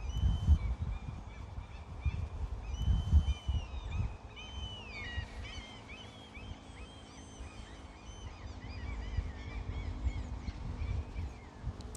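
Birds calling: a few held whistled notes in the first few seconds, then a quick run of short chirping calls through the middle, over a low gusty rumble that is loudest at the start.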